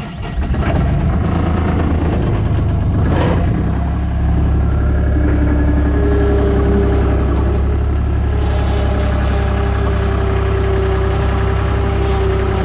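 Farm vehicle engine running steadily under power, with a steady whine above the low rumble. It comes up to full loudness about half a second in.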